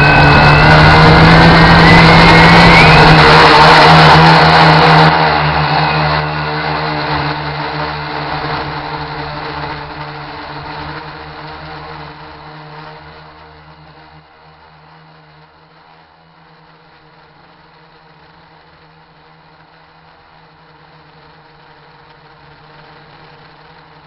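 RC quadcopter's electric motors whirring, with a rising whine in the first few seconds over heavy wind noise on the microphone. The sound then fades over about ten seconds to a faint steady hum.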